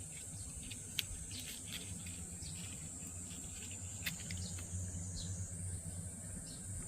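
Cicadas singing: a steady, unbroken high-pitched buzz, with scattered short ticks and chirps over it.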